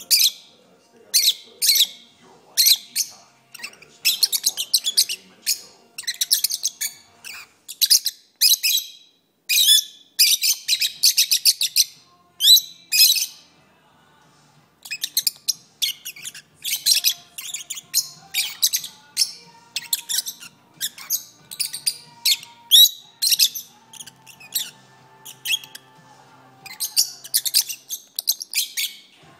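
Pet lovebirds singing: rapid runs of high, shrill chirps and twitters in clusters of a second or two, with a short pause about halfway through.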